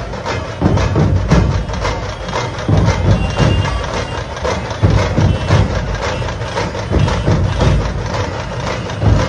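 Drums beating loudly in an uneven rhythm of sharp, deep strokes, over a continuous crowd din.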